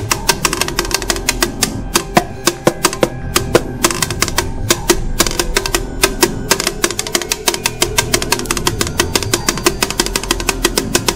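Drumsticks striking a drum in rapid strokes, played along with music that carries steady pitched tones underneath.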